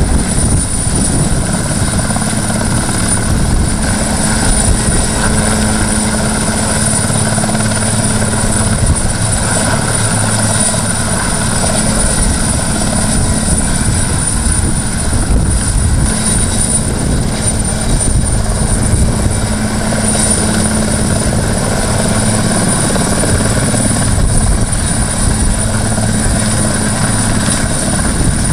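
Puma-type twin-turbine military helicopter hovering low, its rotor and engines running steadily, with a constant high turbine whine over the rotor noise.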